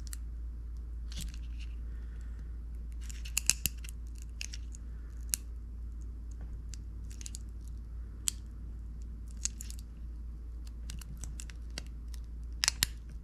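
Fingers prying a small pouch battery out of a plastic Bluetooth headset housing: scattered small clicks, crinkles and scratches of plastic and battery wrap, loudest about three and a half seconds in and again near the end.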